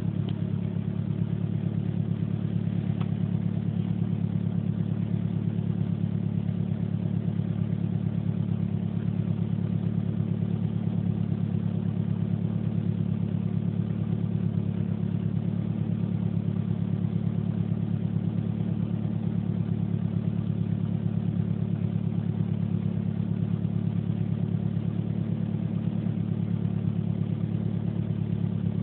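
A vehicle engine idling steadily, with an even, unchanging note throughout. The owner is unsure whether it is making an abnormal noise.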